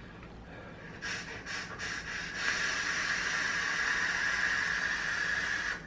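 OBS Engine RTA being drawn on while its coil fires: a hiss of air pulled through the top airflow over the sizzling coil. It comes as a few short pulls about a second in, then one long steady draw that stops near the end.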